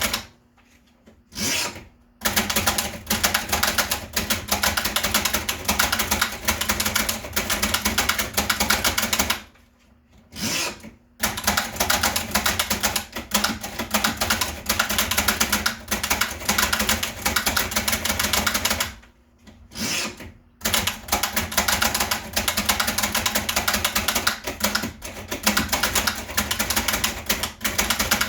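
1920s Bing No.2 portable typewriter being typed on: quick, steady runs of keystrokes clacking, broken by short pauses about two seconds in, ten seconds in and twenty seconds in.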